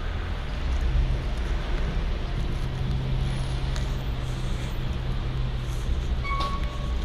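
A vehicle engine idling, a steady low hum, with a brief high tone about six seconds in.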